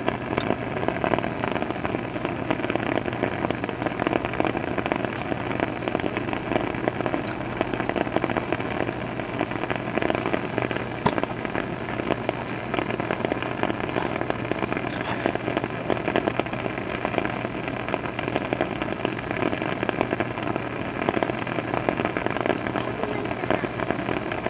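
Continuous dense crackling and sputtering of a flame, running unusually noisily; the camper calls it loud and decides to put it out.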